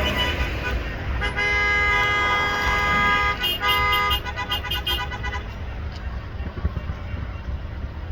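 A car horn gives one held blast of about two seconds, then a quick run of short toots that stops about five seconds in. A steady low rumble runs underneath.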